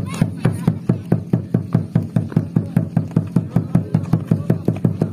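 A drum beaten in a fast, steady rhythm, about five strokes a second, with a brief rising shout at the start.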